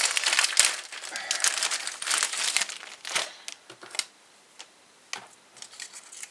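Clear plastic kit bag crinkling and rustling as the plastic parts sprues are pulled out of it, for about two and a half seconds. Then a few scattered light clicks, dying away to quiet near the end.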